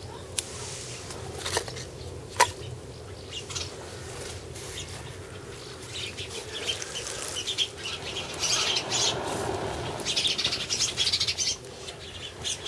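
Split wooden sticks knocked into place on top of an upright split-log fire (Swedish torch), three sharp clicks. Then repeated hard blowing on the embers to bring the kindling to flame, rushing puffs of air that grow louder about eight seconds in.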